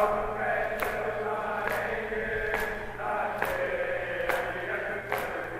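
Men chanting a noha (Shia lament) together, with a steady beat of open-hand chest strikes (matam) landing a little more than once a second.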